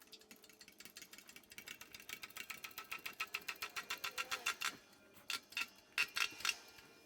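Ratchet wrench clicking quickly and evenly, about eight clicks a second and growing louder, as bolts are run in while the wheel bearing goes back in, then a few slower, louder clicks near the end.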